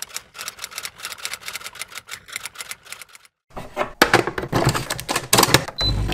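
Rapid typewriter key clicks for about three and a half seconds, then clattering as a ceramic cup is set into a capsule coffee machine, and the machine's pump starting with a steady buzzing hum near the end.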